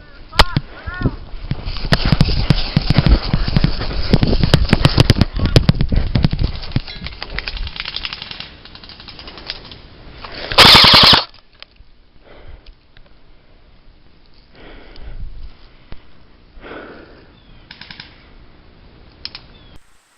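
Airsoft guns firing in rapid full-auto strings, a dense exchange for several seconds, then one loud burst close by about ten seconds in, followed by a few scattered fainter shots.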